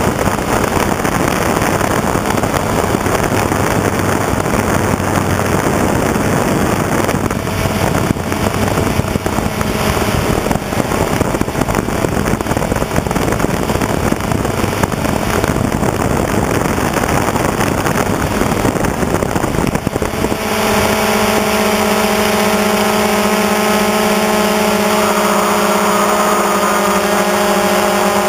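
DJI Phantom quadcopter's motors and propellers heard from its onboard camera: a loud, even rushing noise of propeller wash as it lifts off and climbs. About twenty seconds in this changes abruptly to a steady hum of several held tones.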